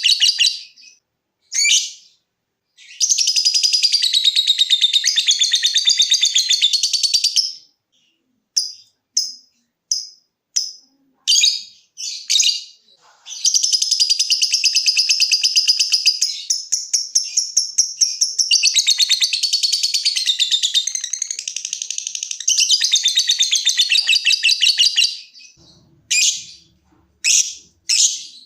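Lovebird chattering in long, rapid, high-pitched bouts of several seconds each (the 'ngekek' song), broken by short single chirps about 8 to 13 seconds in and again near the end.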